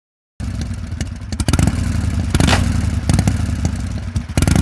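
Motorcycle engine running loud, with rapid, uneven exhaust pulses, starting abruptly about half a second in.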